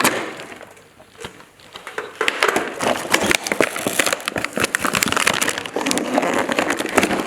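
Dense, irregular crackling and clicking as plastic packaging and a pile of loose toy ammunition balls are handled, starting about a second in.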